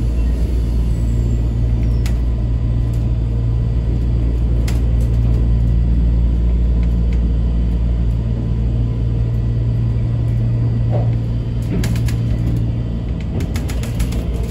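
Suspended Safege-type monorail car running along its overhead track beam, heard from inside the front cab: a loud, steady low rumble from the rubber-tyred running gear. A few light clicks and rattles come near the end.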